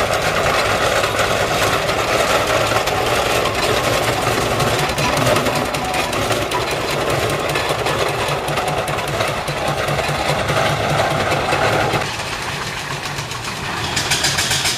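Steam traction engine running on the road: a steady, rhythmic mechanical beat from its motion and exhaust. The sound changes about twelve seconds in, and a sharper, evenly repeating beat comes in near the end.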